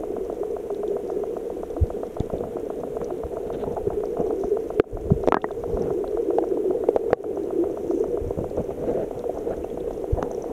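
Muffled water sloshing and bubbling around a camera held just under the surface, with a fast, even ticking running through it. The sound cuts out for an instant twice near the middle, with a few louder knocks between.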